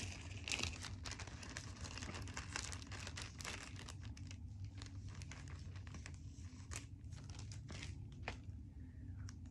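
A clear plastic zip-top bag and the foil wrapper of a booster pack crinkling and rustling in the hands as the pack is slid out of the bag, with irregular small crackles throughout.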